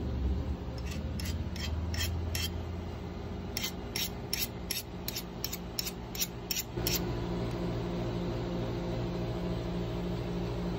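A metal hand tool scraping along a freshly quenched steel knife blade on the anvil, in about fifteen short, quick strokes in two runs. From about seven seconds in there is a steady low hum instead.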